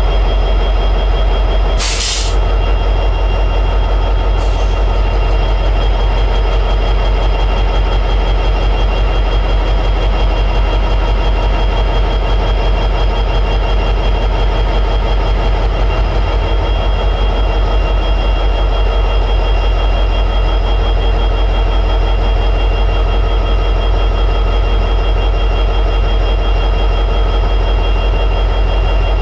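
EMD 710G3B two-stroke diesel prime mover of an SD60E locomotive running steadily in high idle with an even, pulsing beat. A short burst of hiss comes about two seconds in, and a fainter one a couple of seconds later.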